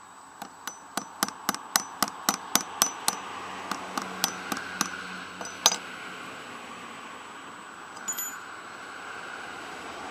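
Steady hammer taps on metal at the end of a small-engine electric starter motor, about four blows a second with a short metallic ring after each, most likely working on the starter drive gear salvaged from another starter. The blows pause briefly, come again more slowly, and end with one harder blow. A single light clink follows a couple of seconds later.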